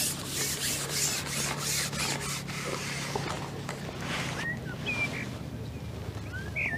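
Scratchy rustling noise for the first three seconds or so, over a steady low hum. In the second half come a few short bird chirps.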